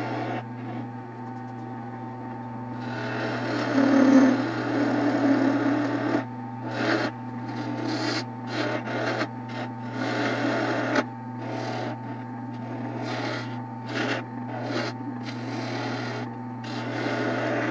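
Wood lathe running with a steady motor hum while a tool works the spinning Osage orange wood in short passes that start and stop. The longest and loudest pass comes about three to six seconds in.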